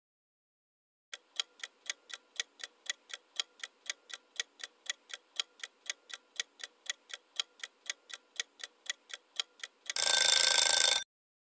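Countdown-timer sound effect: a clock ticking evenly at about four ticks a second, then a brief, louder alarm ring about ten seconds in, marking that the answer time is up.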